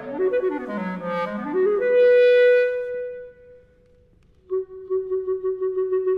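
Solo clarinet playing quick runs that sweep up and down, landing on a long, loud high note that fades away. After a pause of about a second, a softer, lower note comes in and is held steady.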